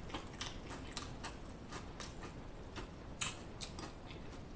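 A person chewing a mouthful of tortilla chips with the mouth closed: a rapid series of small crisp crunches, about three a second, with one sharper crunch a little past three seconds in.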